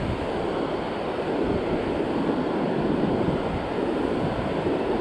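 Ocean surf washing onto a beach, a steady rush of waves, with wind noise on the microphone.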